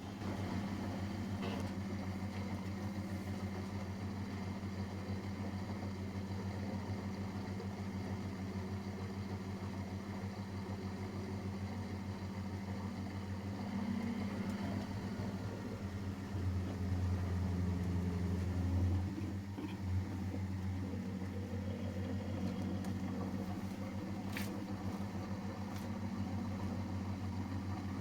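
Miele Professional WS5436 washing machine running mid-cycle: a steady low mechanical hum that grows somewhat louder for a few seconds past the middle.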